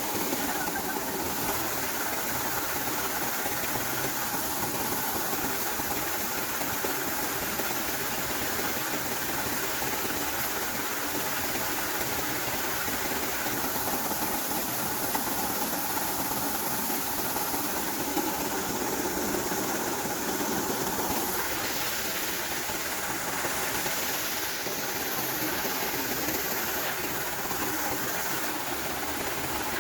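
Maize sheller (corn threshing machine) running steadily: a constant engine hum under a dense rushing noise that does not change.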